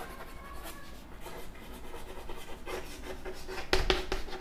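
Chalk scratching on a chalkboard as words are written in short strokes, faint, with a louder cluster of strokes near the end.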